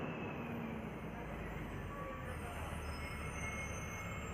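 Steady running and road noise of a vehicle on the move, heard from on board, with a faint high whine that comes and goes partway through.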